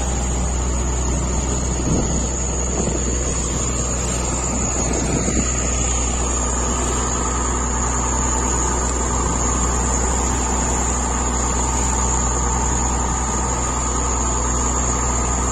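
Fishing trawler's inboard engine running steadily under way, a constant even hum with the rush of water along the hull.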